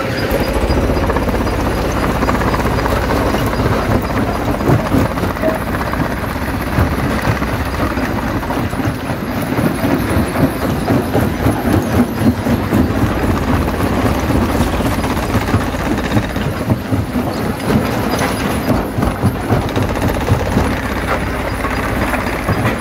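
Jaw crusher running and breaking stone: a steady rumble under constant irregular clatter and knocks of rock cracking between the jaws.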